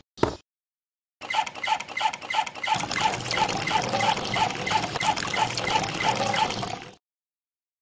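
Water running from a miniature hand pump's spout into a small metal bucket, over a rapid, even ticking of about six beats a second. The flow gets fuller about a third of the way in, and the sound cuts off suddenly near the end.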